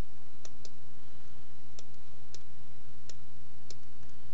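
Computer mouse clicked six times, the first two close together, the rest spaced out, over a steady low hum.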